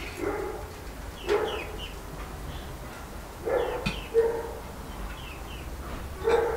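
A dog barking several times, a single bark every second or two, with small birds chirping and a fork clinking on a plate in between.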